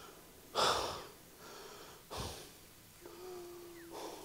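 King cobra hissing: two short, breathy hisses about a second and a half apart.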